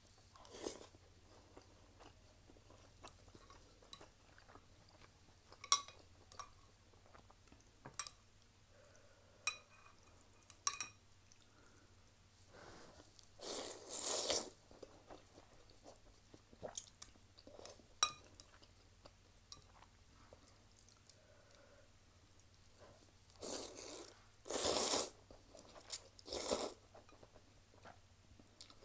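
Close-miked eating of ramen noodles: the noodles are slurped in two long bouts, about halfway through and again near the end. Between the bouts come soft chewing and sharp clicks of chopsticks and a spoon against a glass bowl.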